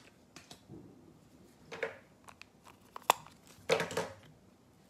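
Foil trading-card pack wrapper crinkling as it is handled, in a few short bursts, with a sharp click about three seconds in; the loudest crinkle comes near the end.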